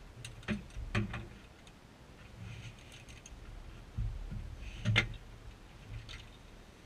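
Scattered clicks and knocks of hands handling the seat and gear in a Bell 206A helicopter cabin, with the engine not running; the loudest knock comes about five seconds in.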